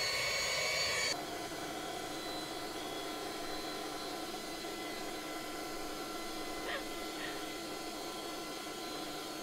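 A small electric motor whirring steadily at a high pitch. About a second in the whine drops away, leaving a quieter, steady whir.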